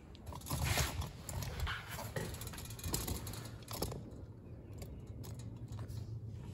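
Small metal clicks and scrapes of a cotter pin being pushed through the lower clevis pin of a tractor three-point lift link. A low rumble of phone handling noise runs under it as the camera is moved.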